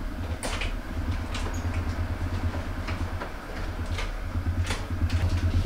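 Low, pulsing hum of a ship's engines and machinery carried through the cabin, with a few scattered clicks and knocks. A door latch clicks about four seconds in as the cabin door is opened.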